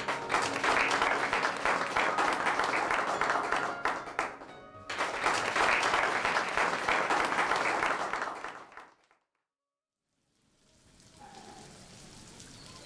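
An audience applauds in a hall, in two rounds of clapping with a short lull between, while music plays faintly underneath. The clapping fades away, and after a moment of silence there is only a faint outdoor background.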